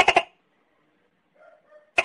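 Tokay gecko calling in short bursts of rapid stuttering pulses. One burst ends just after the start, a few faint small sounds come about a second and a half in, and the next burst starts at the very end.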